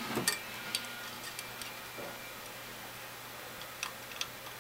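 Faint, scattered small clicks and ticks from component leads and wiring being handled in a metal amplifier chassis during assembly, a few near the start and two sharper ones near the end.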